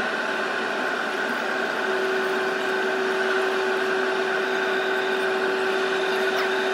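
Steady airliner cabin noise: a constant rush and hum with fixed tones. A further steady tone joins in about two seconds in.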